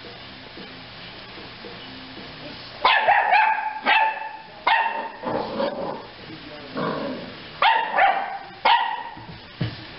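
Puppy barking: a run of about ten short, high-pitched yaps starting about three seconds in, demand barks at an older dog holding its toy.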